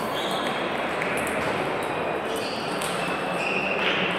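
Table tennis play in a sports hall: celluloid-type ping-pong balls clicking off tables and bats, with a few short high-pitched pings and a constant murmur of hall noise and voices.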